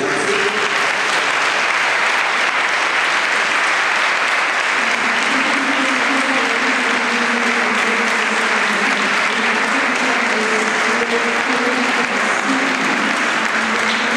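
Audience applauding steadily and at length, with faint voices underneath.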